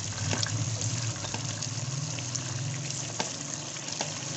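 Steady rushing hiss of a pot of chicken and potato curry simmering on a gas stove, with a few soft knocks as handfuls of raw cauliflower florets are dropped in.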